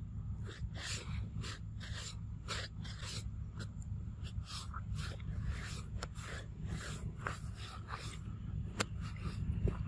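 A young macaque eating ripe mango close up: wet smacking and chewing at about two bites a second, with a sharp click near the end, over a steady low rumble.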